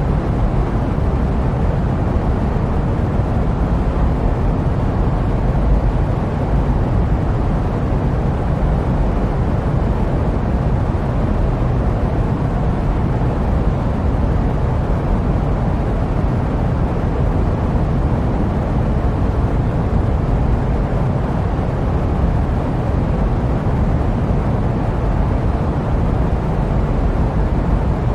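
Steady jet aircraft noise used as white noise: an even, unbroken low rumble with a soft hiss above it, never changing.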